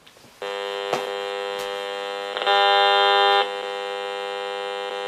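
An RF meter's audio output buzzing steadily as it picks up the pulsed radio signal of a cordless phone base station that has just been plugged in. The buzz starts about half a second in and grows louder for about a second in the middle.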